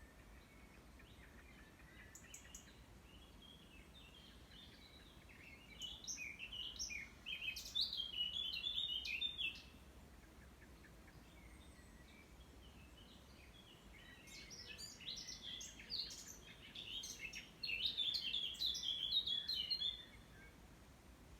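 A songbird singing two long, rapid phrases of high notes, the first about six seconds in and the second about fourteen seconds in, with a few faint high calls before them.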